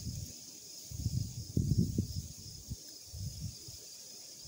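Wind buffeting the microphone in irregular gusts, strongest about a second and a half in, over a steady faint high hiss.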